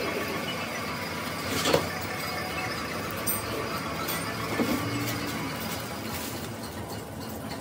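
Steady background noise with a sharp knock a couple of seconds in and a few light crackles of plastic bags as new cylinder sleeves are handled and set on their cardboard boxes.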